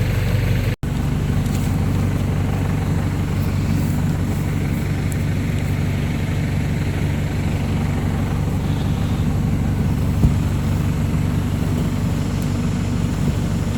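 Diesel engine of a New Holland tractor-backhoe idling steadily, with a single short knock about ten seconds in.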